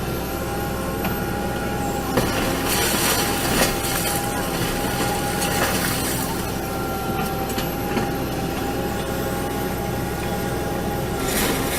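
Heavy machinery running steadily with a high, even whine over the engine, broken by a few bursts of harsh scraping noise.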